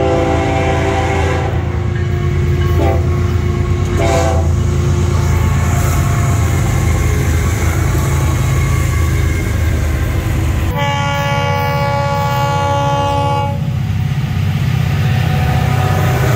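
Florida East Coast Railway diesel freight locomotives passing with a heavy engine rumble throughout, their air horns blowing for crossings. A horn chord sounds at the start, short blasts follow around three and four seconds in, and a long blast comes from about eleven to thirteen and a half seconds.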